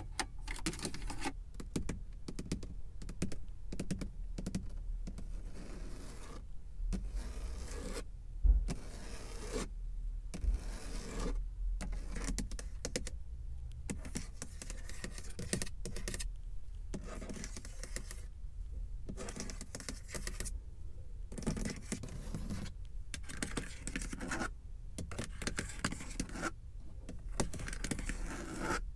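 Rapid, close-up tapping on a car's surfaces, with some scratching and one louder knock about eight seconds in.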